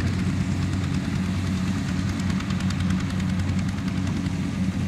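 Two-wheel walking tractor's single-cylinder diesel engine running steadily under load as it pulls a trailer stacked with sacks of rice.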